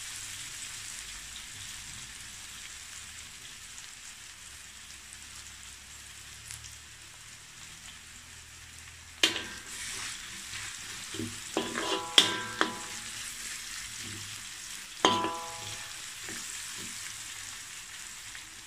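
Sliced onions sizzling in hot oil in a wok while being sautéed until brown, a steady frying hiss. In the second half a metal spatula stirs them and strikes the wok three times, each strike ringing briefly.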